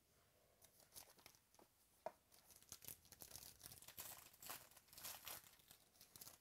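Gold foil trading-card pack wrapper (Panini Gold Standard) being torn open and crinkled by hand: a run of crackling tears and rustles, starting about half a second in, with a sharp snap about two seconds in.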